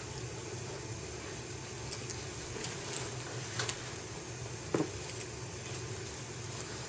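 Faint handling noises of a Caterpillar leather work boot being pulled on: a few soft ticks and rustles, then a single dull thump about two-thirds of the way through, over a steady low hum of room noise.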